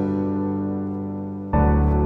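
Background music: slow, sustained chords, each fading out, with a new chord starting about a second and a half in.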